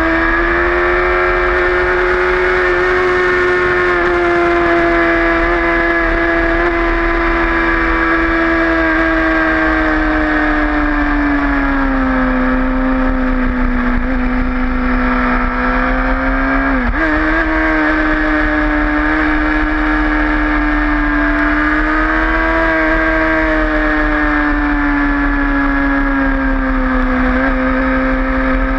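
Sport motorcycle engine running hard at high revs, its note rising and falling slowly through the bends, with steady wind rush on the microphone. About halfway the pitch sags for a few seconds, then jumps back up with a brief hitch.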